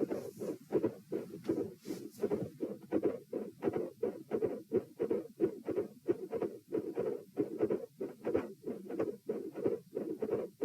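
Human heart heard through a stethoscope after a stress test, beating in a quick, even rhythm of paired lub-dub thuds. The recording is labelled as carrying a midsystolic murmur and a split second heart sound.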